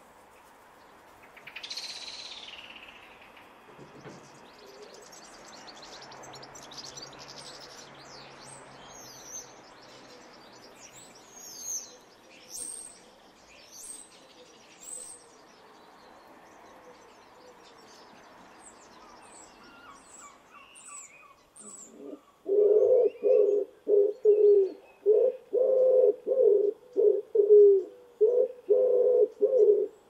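Small birds chirping faintly with high, short notes, then, in the last third, a common woodpigeon cooing loudly and close by in a steady run of low repeated phrases.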